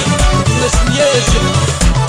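Instrumental break of an Algerian raï song: an ornamented melody line over a steady bass beat about twice a second, with no singing.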